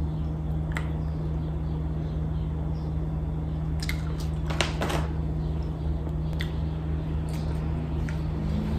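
Chewing a mouthful of dried dulse seaweed, with a few sharp mouth clicks, and a plastic bag rustling briefly about four to five seconds in, over a steady low hum.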